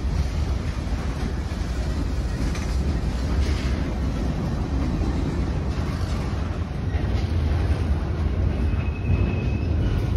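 Long freight train rolling past, a steady low rumble of wheels on rail with scattered faint clicks.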